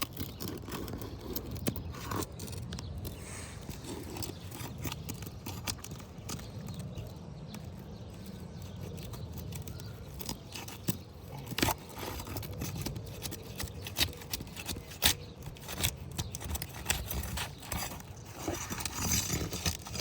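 Scraping with scattered sharp clicks and knocks as a hand tool is worked under asphalt roof shingles to break their seal and loosen them. A steady low rumble runs underneath.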